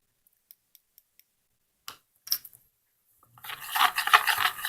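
A few light ticks and two sharper clicks, then, from about three and a half seconds in, a spoon scraping around inside a small pot as the slime mixture of face mask and water is stirred.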